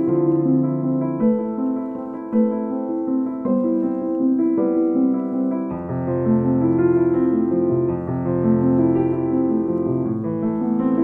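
Background piano music playing held chords that change about once a second.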